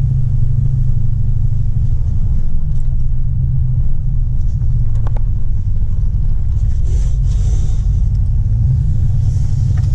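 1999 Dodge Ram 1500 pickup driving, a steady low rumble of engine and road noise inside the cab.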